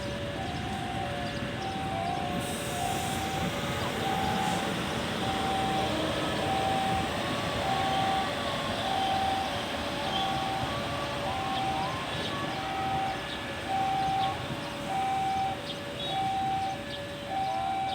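Two-tone electronic warning alarm at a railway level crossing, alternating a higher and a lower tone about once a second, over a steady rushing noise from a train.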